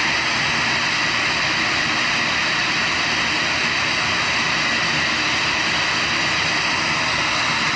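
Shop vacuum running steadily: an even, unbroken motor whine and rush of air.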